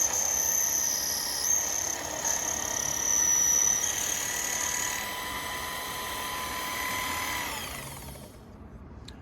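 Craftsman/Sherline 3-inch micro lathe running on its 110-volt AC motor during a test cut, a steady whine whose high tones shift a few times as the load changes. Near the end the motor is switched off and winds down, its pitch falling away.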